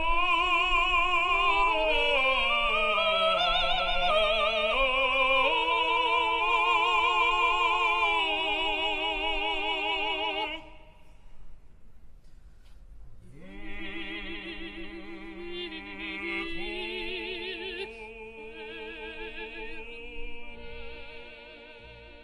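Operatic singing with wide vibrato, two melodic lines moving apart, one rising as the other falls. The loud passage breaks off about ten seconds in; a quieter phrase follows and fades out near the end.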